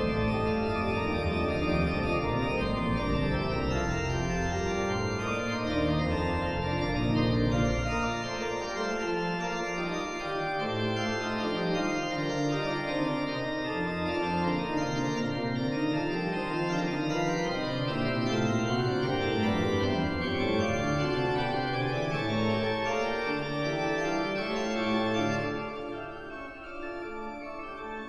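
Organ music: sustained chords over a slowly moving bass line, growing quieter about two seconds before the end.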